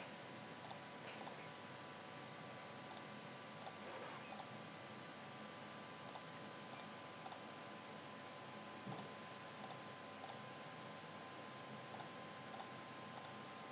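Faint computer mouse clicks, scattered and often in pairs, as cases are selected one after another in a program. A low steady hum lies underneath.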